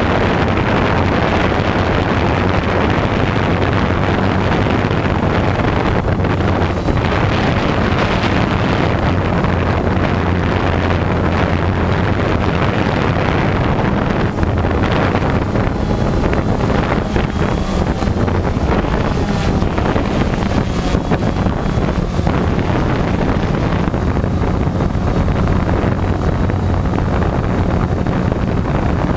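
Multirotor drone's motors and propellers running steadily, heard from the camera it carries: a loud, even, low hum with wind rushing over the microphone.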